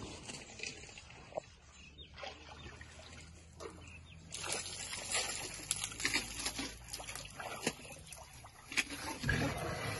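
African elephants drinking at a water trough: water sloshing and trickling among crackling and scuffing sounds, which grow louder and busier about four seconds in.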